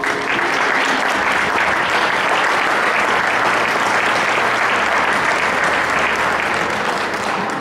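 Audience applauding: a dense, steady clapping that starts at once and tails off near the end.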